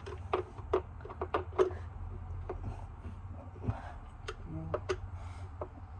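Irregular sharp clicks and knocks of a tool on the metal parts of a garbage disposal's sink mounting assembly as it is tightened, over a low steady hum.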